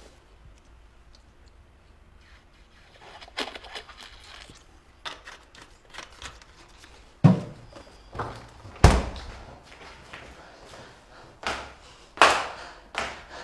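Several sharp thuds and knocks in a small room, the loudest about seven, nine and twelve seconds in, with smaller knocks and rustling between.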